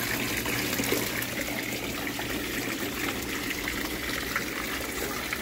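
Steady trickling and splashing of water running into a small fish pond, with a faint low hum underneath.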